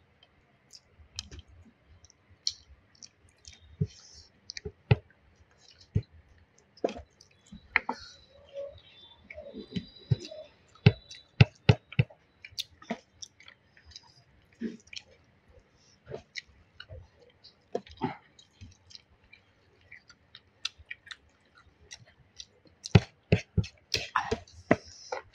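Eating close to the microphone: chewing and mouth sounds with many irregular sharp clicks, while a chicken curry meal is eaten. The clicks come thicker and louder near the end.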